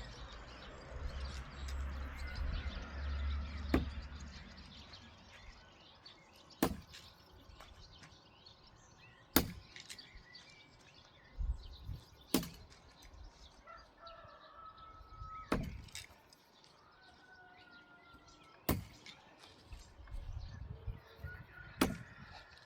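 Thrown Glock 78 field knives striking a target seven times, about three seconds apart, each a sharp hit, during no-spin knife-throwing practice. Birds chirp faintly between throws.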